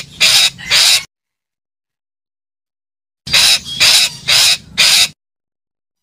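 Red-breasted parakeet giving harsh, rasping calls in quick series: the last calls of one burst at the start, then four calls in a row about three seconds in, with dead silence between the bursts.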